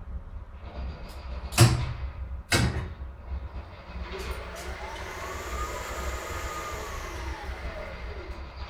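Lift traction machine, driven by a Ziehl-Abegg frequency inverter, starting a run. Two sharp clacks as the drive engages, then the motor's whine rises in pitch, holds and falls again over a steady low hum. The rising and falling pitch follows the inverter ramping the motor's speed up and then down.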